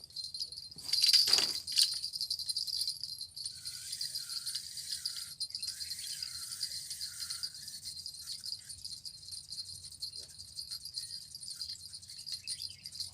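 Insects trilling in a steady, high-pitched, fast-pulsing drone. A loud jingling clatter comes about a second in, and a wavering warble rises and falls in the middle.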